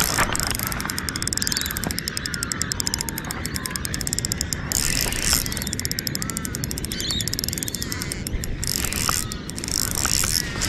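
Spinning reel being cranked on a steady retrieve, its gearing giving a rapid, even ticking, with a few bird calls behind it.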